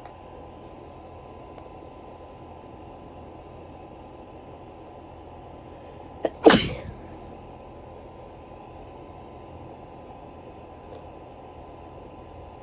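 A single woman's sneeze brought on by black pepper brushed at the nose. A short sharp catch comes just before the loud main burst about six seconds in, and the burst fades within about half a second.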